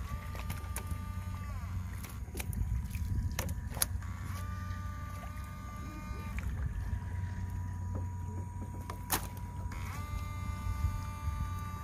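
Electrofishing shocker's inverter whining three times, each whine lasting one to two seconds and dropping in pitch as it is switched off, over a steady low hum, with sharp clicks now and then.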